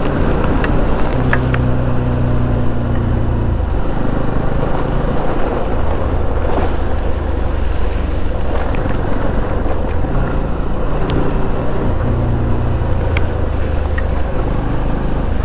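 Motorcycle riding along with steady wind rush on the microphone; its engine hum comes up clearly twice, for a couple of seconds each time.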